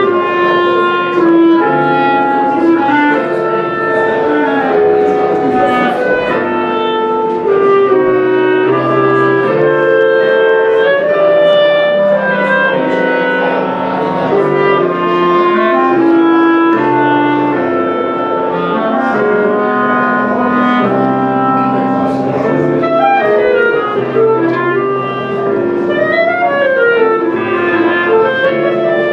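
Two clarinets playing a melody together in harmony, the parts moving closely in step, with quick running notes near the end.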